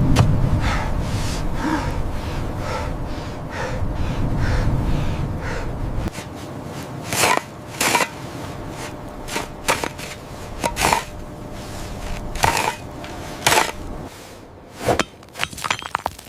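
A loud low rumble with faint regular crunching ticks stops abruptly about six seconds in. Scattered sharp knocks and clinks, each with a short ring, follow.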